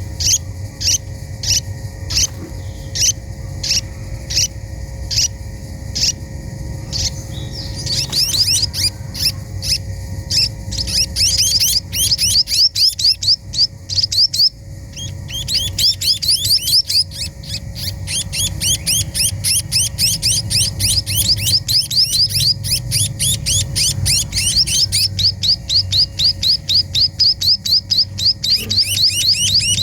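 Small pipit teki birds chirping: high, short chirps at about two a second, then from about eight seconds in a fast, almost continuous run of rapid chirps, over a steady low hum.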